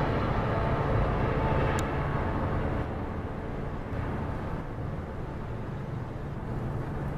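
Steady outdoor background rumble, like distant traffic or engine noise, slowly fading, with a faint tick about two seconds in.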